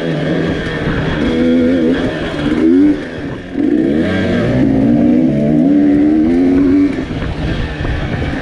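Dirt bike engine heard from on the bike, revving up and down as the throttle is opened and closed along a trail. It eases off briefly about three seconds in and again near the seven-second mark.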